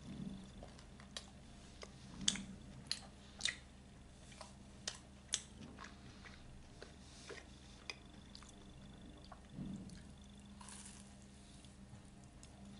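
Faint sharp clicks and taps, about a dozen, mostly in the first half, with a short rustle near the end, over a low steady hum.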